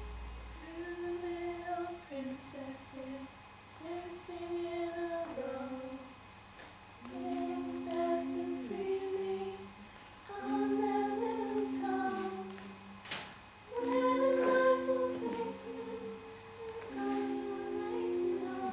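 Several voices singing a slow melody together in harmony, unaccompanied, in phrases of a few seconds with short breaks between them. A single sharp click sounds about thirteen seconds in.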